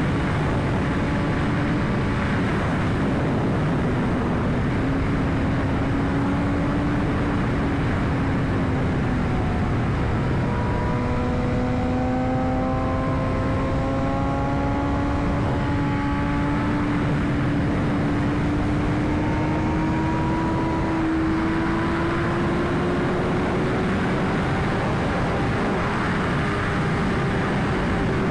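2021 BMW S1000RR's inline-four engine running at a steady cruise under heavy wind rush. Its pitch dips slightly about ten seconds in, then climbs slowly.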